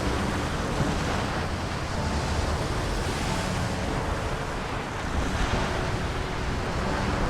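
A steady rushing noise like wind or surf, with a faint musical tone underneath.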